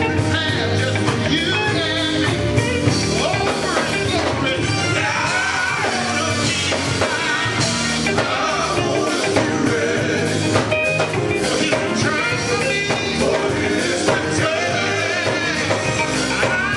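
Live gospel group performing: a lead male singer on a handheld microphone, with electric guitar and drum kit accompaniment.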